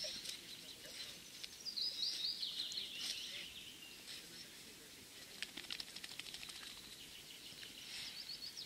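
A small songbird singing: a quick, high trill of repeated notes about two seconds in, and again near the end, with a few faint ticks between.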